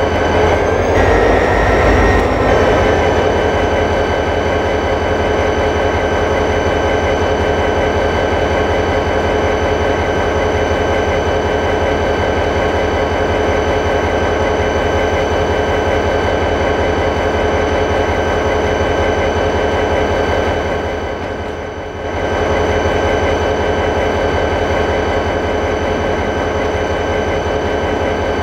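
A train running steadily: a constant low mechanical rumble with several steady whining tones over it, dipping briefly about three-quarters of the way through.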